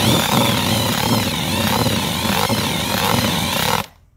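Cordless drill driving a paddle mixer through damp groundbait earth in a plastic bucket, the motor's whine wavering in pitch as the load changes. The drill stops near the end.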